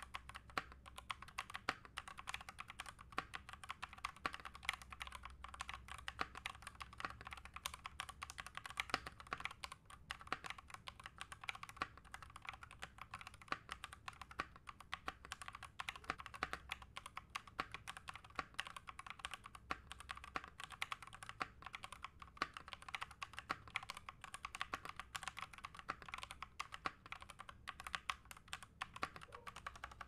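Continuous two-handed typing on an Ajazz K870T Pro mechanical keyboard with Ajazz AS 101 Red linear switches: a dense, steady stream of key clacks, several keystrokes a second.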